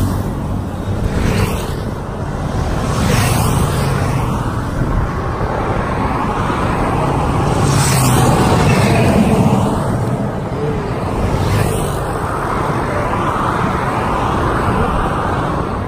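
Highway traffic passing: a steady rush of road noise, with several vehicles sweeping past one after another.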